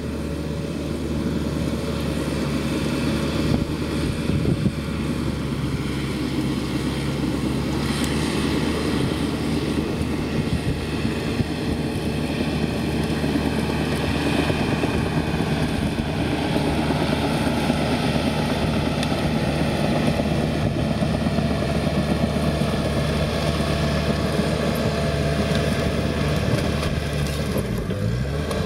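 Komatsu crawler bulldozer's diesel engine working under load as the dozer pushes a pile of burned ash and debris, growing louder as it comes closer. The engine pitch rises briefly near the end.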